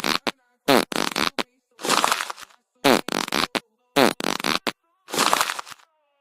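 An edited-in comic sound effect repeated five times, about once a second: each time a short click, then a half-second buzzy sound that falls in pitch.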